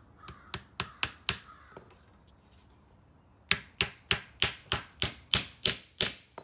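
Claw hammer driving a nail through the ends of two 1x2 wooden strips: a few light taps to start the nail, a pause of about two seconds, then about ten harder blows at roughly four a second.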